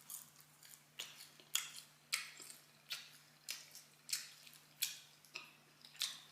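Close-up chewing of fried chicken, short crunchy chews at about two a second.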